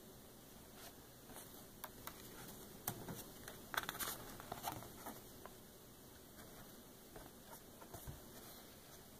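Plastic lenticular cards being handled and set down on a wooden table: faint taps, clicks and rustles, busiest around the middle.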